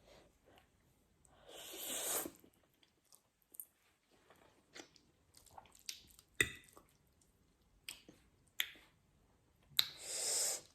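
A person eating noodles close to the microphone: two long wet slurps, one about two seconds in and one near the end, with chewing and small clicks between them.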